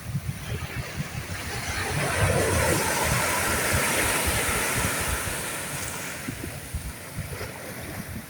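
Wind buffeting the microphone in low thumps, with a rushing swell of noise that builds and fades over about four seconds in the middle.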